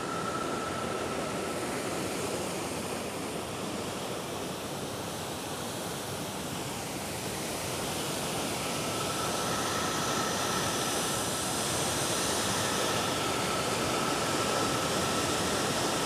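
Waterfall: water rushing and splashing over rock ledges into a gorge in a steady, even noise that grows a little louder in the second half.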